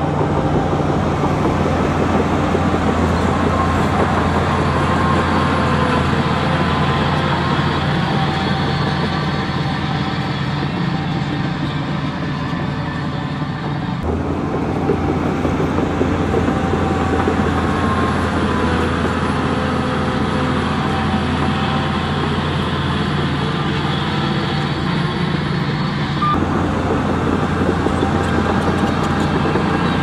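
Heavy diesel engine of earthmoving machinery running steadily at a constant pitch. The sound changes abruptly about 14 and 26 seconds in, where the footage is cut.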